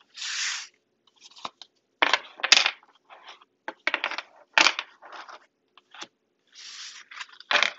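Tarot cards being gathered up off a wooden desk: brushing slides of cards and several sharp taps and knocks as the cards are picked up and stacked.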